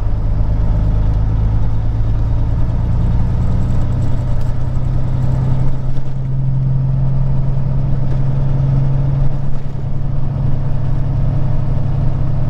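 Peterbilt 379 semi truck's diesel engine running steadily while the truck moves along, a low drone heard inside the cab.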